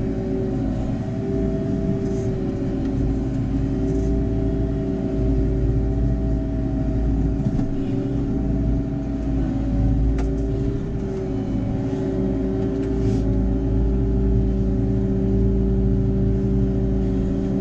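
JCB Fastrac 4220 tractor's six-cylinder diesel engine running at a steady pitch under load while pulling a plough, a constant low drone.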